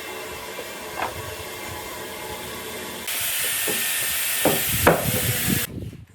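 Workshop machinery running steadily, then a louder hiss of air about three seconds in, with a couple of knocks, that cuts off suddenly near the end.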